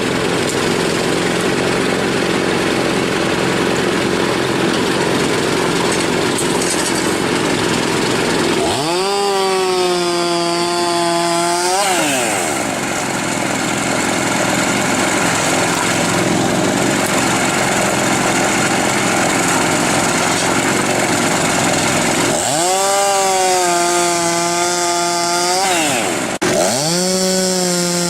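Firewood-processing machinery running with a loud, steady mechanical noise. A small engine revs up to a high, held pitch and drops back, first about nine seconds in and again about twenty-two seconds in, then revs once more after a brief break near the end.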